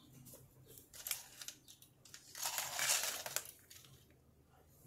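Hands handling small plastic toy figures on a tile floor: light clicks and taps, with a louder scuffing rustle about halfway through.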